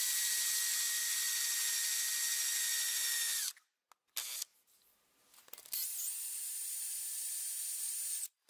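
Power drill running steadily as a twist bit bores into a fiberglass axe handle. It runs for about three and a half seconds, cuts off, and runs again for about two and a half seconds near the end.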